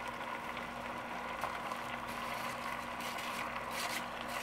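Chicken and onion sizzling steadily in their own juices in a stainless steel pot, with a plastic spatula scraping and stirring through red chile sauce in the last second or so.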